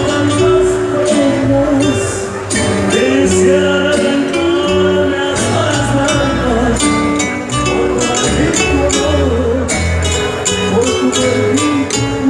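Loud live band music from a stage: a singer over a steady bass line and regular percussion, heard through a phone's microphone amid a crowd.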